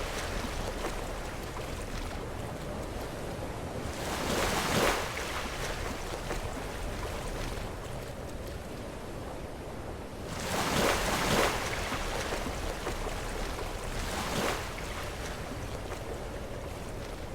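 Sea waves breaking against rocks over a steady surf wash, with a louder crash about 4 seconds in, a bigger one around the middle and a smaller one a few seconds later.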